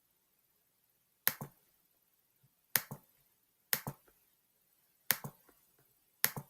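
Five separate clicks, each a quick press-and-release pair, about one every second or so, as the digits of a number are entered into a calculator.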